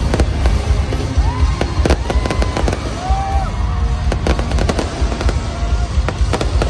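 Aerial fireworks bursting overhead: a rapid, irregular run of sharp bangs and crackles over a constant deep rumble.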